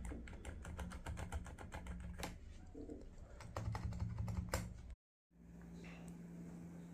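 Typing on a GMK67 mechanical keyboard with Outemu Silent Lemon V3 silent switches: a quick run of muted key clicks for about five seconds that stops abruptly, leaving a faint low hum.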